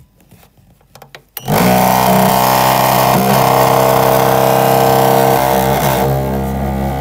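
YG-100 dental amalgamator running a timed mixing cycle: its motor shakes the capsule arm at high speed with a loud, steady buzzing hum. The hum starts about a second and a half in and stops at the very end, easing slightly shortly before.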